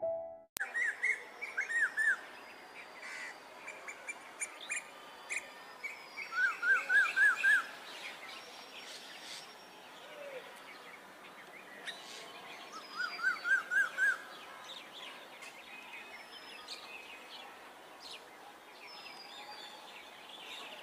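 Several birds calling and chirping. The loudest call is a quick series of five or six arched, rise-and-fall notes, heard about six seconds in and again around thirteen seconds in, with scattered higher chirps over a faint steady background hiss.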